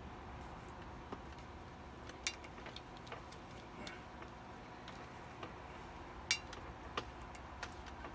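Scattered small clicks and ticks from fingers working at the plastic cap of a glass syrup bottle, a few sharper ones standing out among them.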